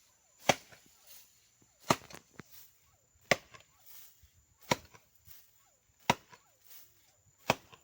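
Wood being chopped by hand: six heavy, evenly paced blows, about one every second and a half, each a sharp crack into the log.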